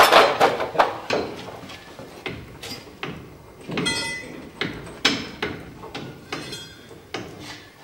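Irregular metal clanks and knocks from steel parts and lifting chains being handled on a steam locomotive's frame. A brief metallic ringing rattle comes about four seconds in.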